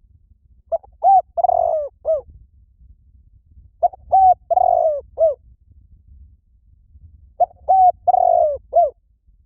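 Spotted dove cooing: three repeated phrases about three and a half seconds apart, each two short coos, a longer drawn-out coo, then a short closing note.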